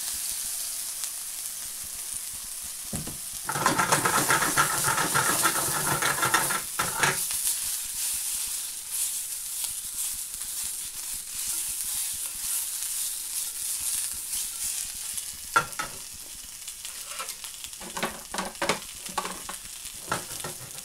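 Beef burger, onions and mushrooms sizzling steadily in a non-stick frying pan, with a louder rattle lasting a few seconds a little way in. The pan is shaken, and near the end a spatula knocks and scrapes against the pan several times.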